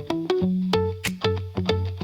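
Instrumental pop music: plucked guitar and bass notes over a steady drum beat, with no vocals.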